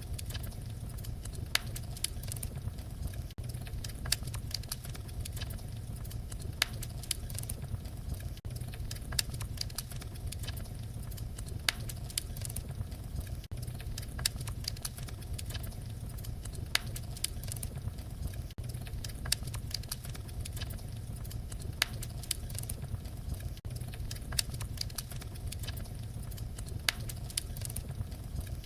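Fireplace fire crackling: a steady low rumble under many irregular sharp pops and snaps.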